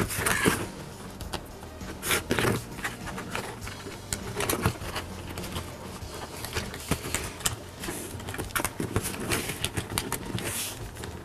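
The plastic shell of a Syma X5C quadcopter being pried apart by hand: scattered plastic clicks and scrapes, louder near the start, about two seconds in and near the end.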